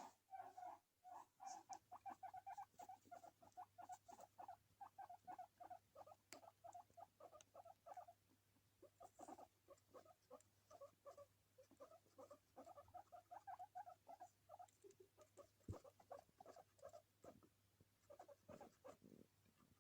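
Faint sounds from an English guinea pig: long runs of short, soft pulses, several a second, broken by brief pauses. There are a couple of sharp clicks, one about six seconds in and one about sixteen seconds in, over a faint steady hum.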